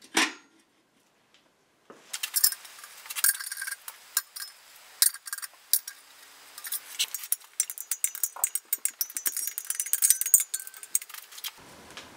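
Light metallic clinks, taps and rattles of a pressed-steel oil baffle and its bolts being handled and set onto an engine block's crankcase, starting about two seconds in, with a brief run of rapid ticking later on.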